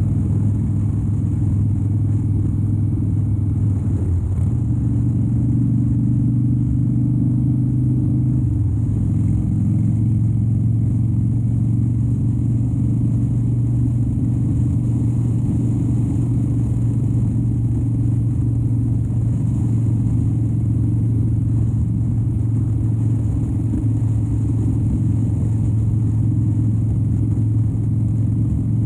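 2013 Harley-Davidson Dyna Wide Glide's 103ci V-twin engine running steadily at cruise, with small changes in engine speed about 4 and 8 seconds in.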